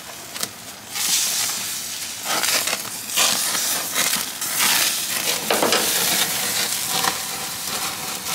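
Koobideh kebab skewers sizzling over the flames of a grill: a loud hiss that swells and dips, with a few sharp crackles.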